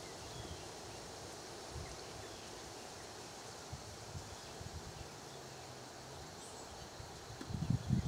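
Steady outdoor background hiss with a few faint, short bird chirps, and a cluster of low thuds near the end.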